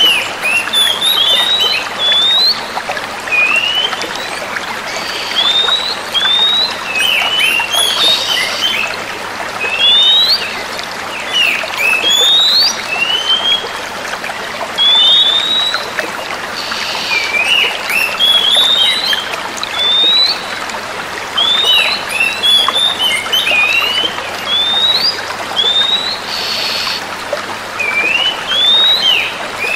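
Female oriental magpie-robins calling back and forth with short, upward-sweeping chirps, several every second or two, broken by a few harsh, raspy calls about a second long. A steady hiss lies underneath.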